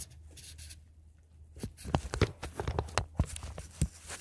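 Handling noise from a phone being moved about: quiet at first, then from about a second and a half in, a run of scattered taps and rubbing against the microphone.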